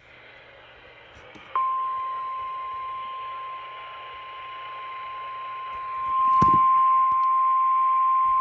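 NOAA Weather Radio 1050 Hz warning alarm tone: one steady high tone that starts suddenly about a second and a half in, eases off, then swells louder around six seconds in, over radio static hiss. It is the alert that comes before a broadcast warning, here a severe thunderstorm warning.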